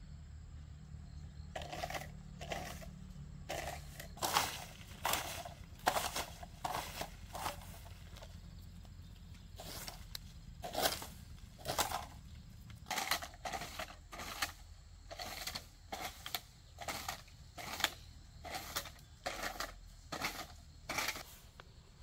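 A long-handled tool dragged through dry fallen leaves on bare earth, gathering them into a pile: a run of uneven rustling scrapes, one or two a second, starting about a second and a half in.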